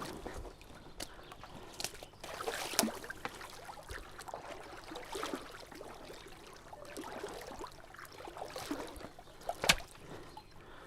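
Someone wading into a river: water sloshing and splashing around the legs with each step, with a couple of sharp clicks.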